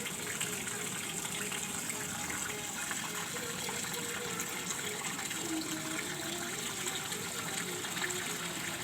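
Steady rushing, gushing water, an unbroken flow at an even level.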